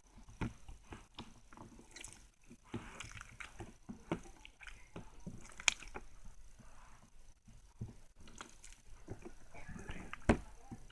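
Slime being squished and poked by hand, making irregular wet clicks and pops; a sharper pop comes about halfway through and the loudest one near the end.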